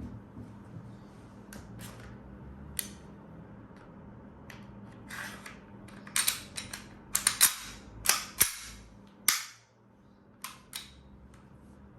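KJW KP-18 gas blowback airsoft pistol firing about a dozen sharp shots, irregularly spaced, some in quick pairs. The loudest shots come in the middle of the stretch.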